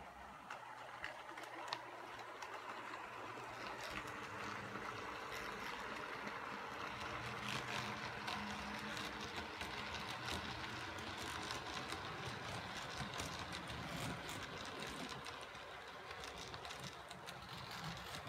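HO-scale model train running on the track: the small electric motor whirring and the wheels of a short string of model boxcars and gondolas clicking and rattling on the rails. It is busiest as the cars pass in the middle and eases off near the end as the train moves away.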